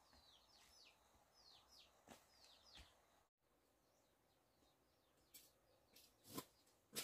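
Faint bird chirps: a run of short, quickly falling notes in the first three seconds. A few sharp knocks follow later, the loudest near the end.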